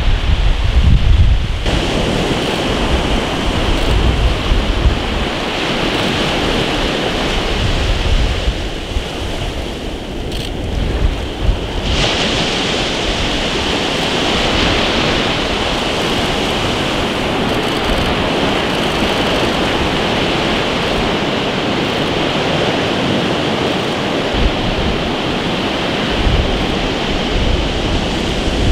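Ocean surf breaking and washing up a sandy beach as a steady rush, with wind buffeting the microphone, heaviest in the first couple of seconds.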